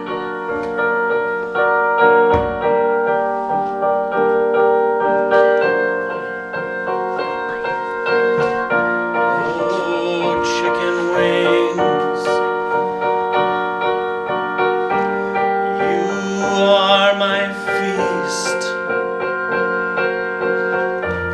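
Piano playing a steady accompaniment of held chords and notes.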